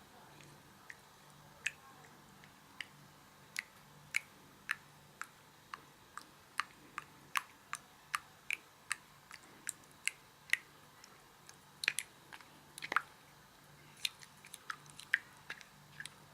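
Slime being squeezed and poked in the hands, making a run of sharp little clicks and pops, roughly two a second.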